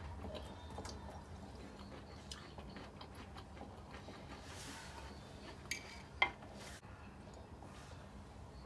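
A few light clinks of metal cutlery and a mug against a slate plate and metal camp table, the sharpest about six seconds in, over a faint steady hum.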